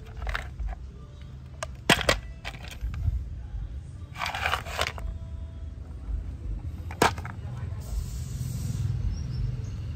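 Plastic motorcycle body parts being handled and turned over: a sharp clack about two seconds in and another about seven seconds in, with a rustling scrape around four to five seconds, over a low steady background hum.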